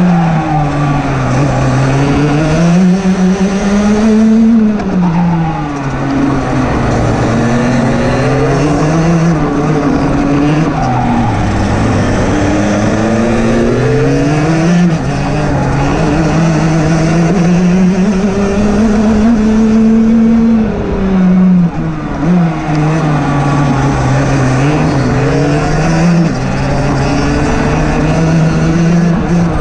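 Rotax DD2 125cc two-stroke kart engine at racing speed, its note climbing under acceleration and dropping away under braking, over and over, lap after lap.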